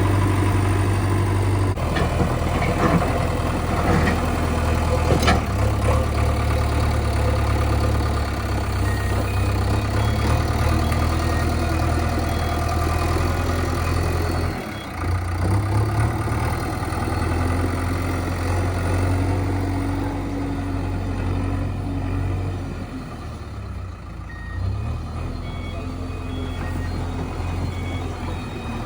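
Diesel engine of a JCB 3DX backhoe loader running under load, with a few knocks in the first five seconds and short, intermittent reversing-alarm beeps.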